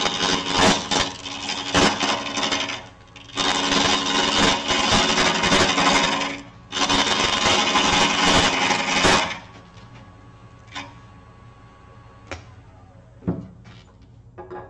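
Gouge cutting into a bark-edged log blank spinning on a wood lathe: three long passes of loud cutting over the lathe's running hum, with sharp knocks as the uneven blank hits the tool. The cutting stops about nine seconds in, leaving a low hum and a few light clicks.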